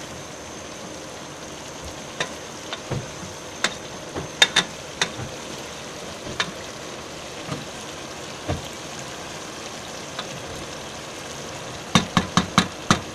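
A spoon stirring French beans, potato and brinjal in a cooking pot, over a steady sizzle from the cooking vegetables. The spoon knocks against the pot now and then, with a quick run of about five knocks near the end.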